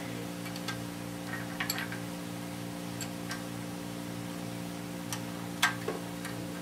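Scattered light metallic clicks and taps of a hand tool and bolts against the oil pump on a Ford 302 V8 engine block, the sharpest a little over five seconds in, over a steady low hum.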